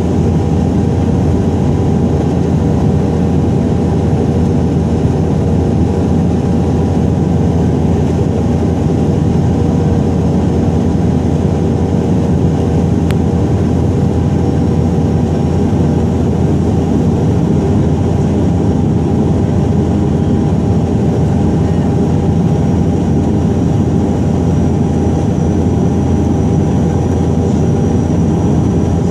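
Steady drone of a high-wing turboprop airliner's engines and propellers heard inside the cabin, on final approach and over the runway threshold to landing.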